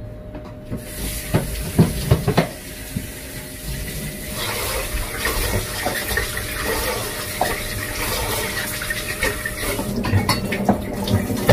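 Tap water running into a rice cooker's inner pot at a kitchen sink while rice is washed, with a few knocks of the pot against the sink about two seconds in.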